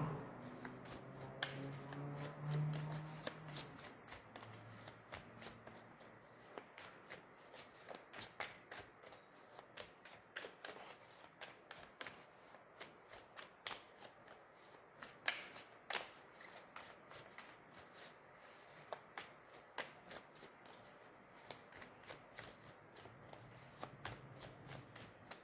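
A deck of tarot cards being shuffled by hand: a long, irregular run of soft card clicks and slaps.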